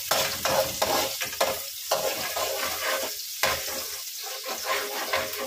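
Chopped onion and garlic sizzling in oil in a metal wok while a metal spatula stirs them, scraping and tapping against the pan at an irregular pace.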